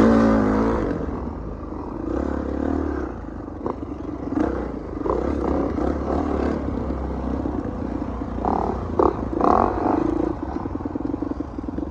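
Dirt bike engines running on a rough trail, the revs rising and falling as the throttle opens and closes, loudest in a surge at the start, with scattered knocks and rattles from the bikes over the ground.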